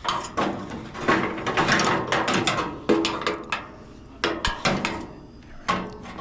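Metal parts and hand tools being worked on a gas furnace: a run of irregular clicks, knocks and clatters, some with a brief metallic ring.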